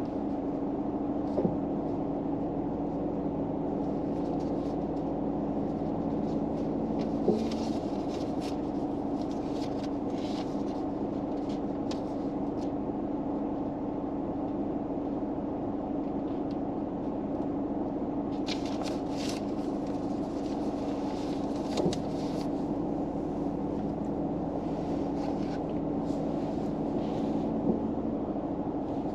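A steady low hum in a car's cabin, like an engine or fan running, with a few faint soft clicks and light rustles over it.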